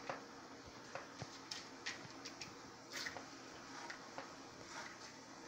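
Kitchen knife chopping ham against the counter: faint, irregular taps, one or two a second.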